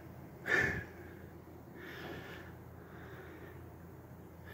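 A short sharp breath out through the nose close to the microphone, about half a second in, then fainter breathing.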